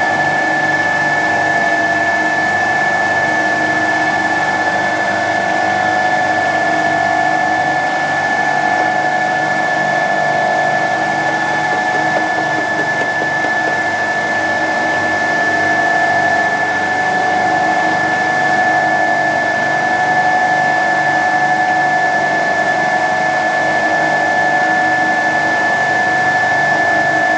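Bitzer refrigeration compressor running steadily: a constant machine hum with a clear, unchanging high whine over it.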